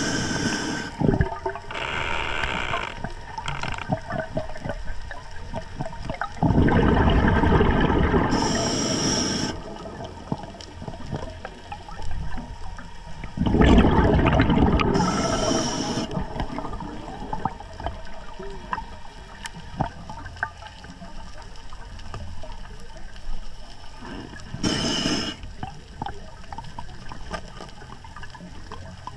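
Underwater audio of a scuba diver breathing through a regulator. Two long rumbles of exhaled bubbles come about six and thirteen seconds in, with brief hisses in between over a steady underwater hiss.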